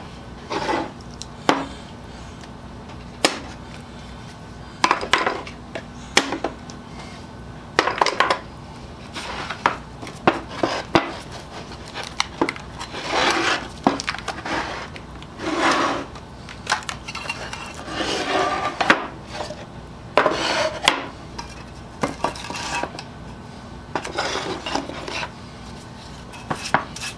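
Wooden boards and hand tools handled on a wooden workbench: irregular knocks and clatter mixed with short scraping scuffs.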